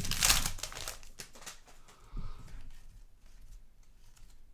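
Trading-card pack wrapper crinkling and cards being handled, a dense rustle for about the first second that then fades to faint card handling.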